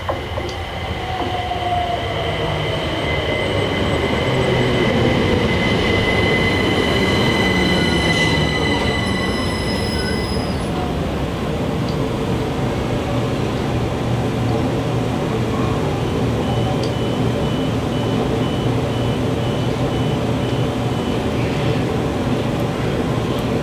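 Southeastern Class 375 Electrostar electric multiple unit running into a station and braking to a stand: an electric motor whine falling in pitch over high wheel and brake squeal for about the first ten seconds, then the steady hum of the train standing. About two-thirds of the way through comes a run of short even beeps, the door warning tone.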